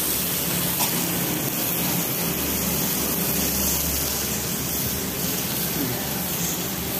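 Meat, sausage slices and onion rings sizzling steadily on a hot Korean-style grill plate over a portable gas stove.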